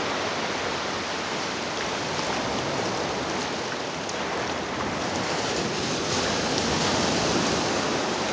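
Shallow ocean surf washing up the beach: a steady rush of water that grows a little louder about six seconds in.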